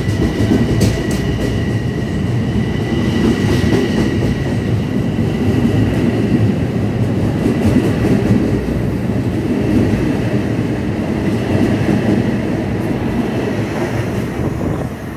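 Long Island Rail Road commuter train running through the station: a loud steady rumble of wheels on rail with some clatter, under a thin steady high-pitched tone, dropping off just before the end.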